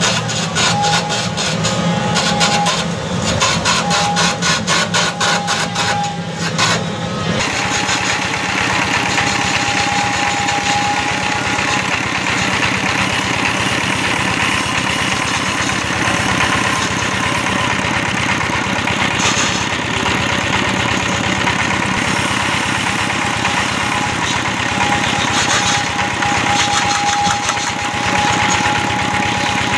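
Small stationary 'dompeng' engine running steadily, driving a simple lathe that turns a coconut-wood pole. About seven seconds in, the sound shifts from a rapid, harsher rhythm to a smoother, steady run.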